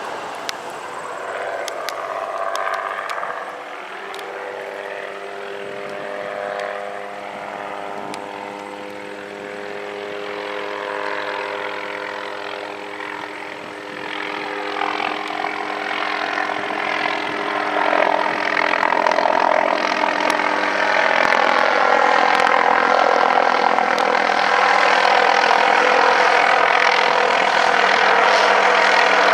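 MD 500E helicopter's turbine and rotors running with a steady layered hum of tones. It grows louder about halfway through and stays loud.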